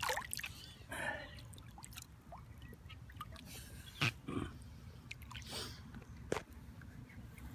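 A hand scoop digging into the ground after a metal detector target, with irregular short scrapes and crunches.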